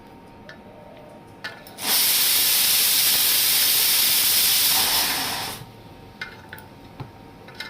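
A pressure cooker releasing steam: a loud hiss begins suddenly about two seconds in, holds steady for nearly four seconds, then dies away. A few light clicks and knocks come before and after it.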